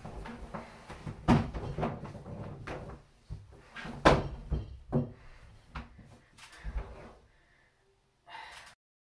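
Heavy hardcover encyclopedia volumes knocking and thudding against the bathtub and against each other as they are shifted and laid in, with rustling between the knocks. The sharpest knocks come about a second in and about four and five seconds in, then the handling dies away, with one short noise near the end.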